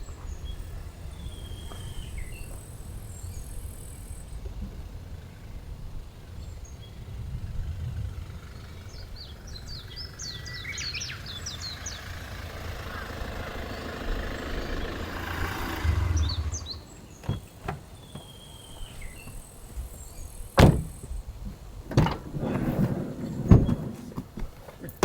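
Outdoor ambience: a steady low rumble with short bird chirps now and then, a swell of noise through the middle, then several sharp knocks and thuds in the last few seconds, the loudest of them about two thirds of the way in.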